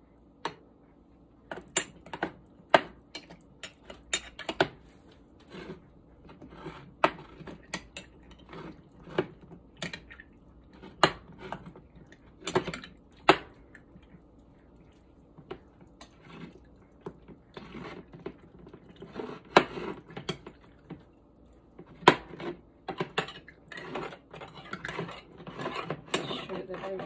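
A metal debubbler tool clinking and scraping against the glass of canning jars packed with raw chicken, in irregular sharp clicks that come thicker near the end.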